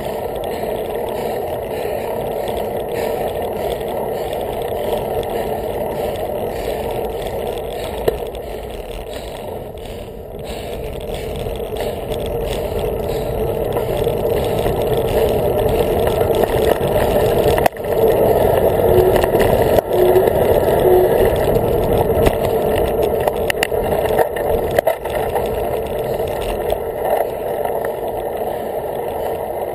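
Bicycle riding noise heard from a camera mounted on the bike: a steady, muffled rush of wind and tyre noise with occasional rattles and knocks. It grows louder about halfway through.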